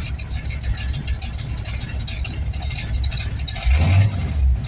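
Chevy Nova's engine idling steadily while warming up after a tune-up with new plugs, cap and rotor, running smoothly; the revs rise briefly near the end.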